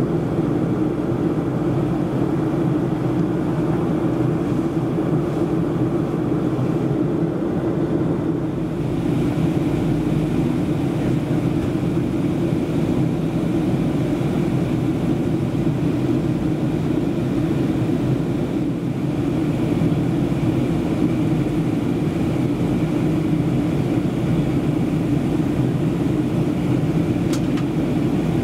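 Steady cabin noise inside a Boeing 737-400 in descent: the drone of its CFM56-3C1 turbofan engines with a hiss above it, the hiss growing a little stronger about nine seconds in.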